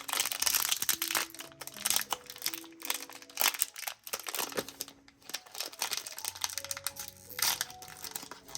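Packaging crinkling and rustling in quick handling noises as a toy pack's small door is opened and a figurine taken out, over soft background music.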